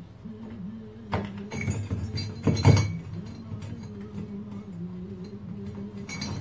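Small metal parts of an old wall clock's movement clinking and knocking as they are handled, with a cluster of clinks between about one and three seconds in, the loudest near three seconds, and another near the end. Soft background music with a slow melody runs underneath.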